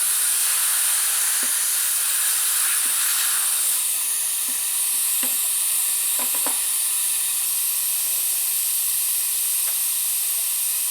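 Steady air hiss from dental treatment equipment, with a few faint light clicks of instruments against the tooth model.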